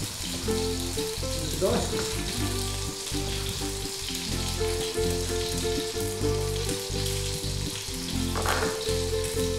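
Pan-frying sizzle, steady throughout, with the occasional knock of a chef's knife cutting celeriac on a wooden chopping board.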